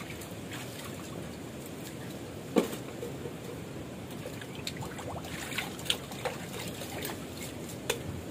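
Water splashing and trickling in a plastic basin as plastic bottles are washed by hand, with scattered clicks and knocks of plastic. The loudest is a sharp knock about two and a half seconds in.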